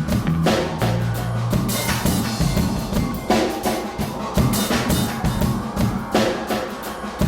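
Background music with a driving drum kit beat and heavy bass.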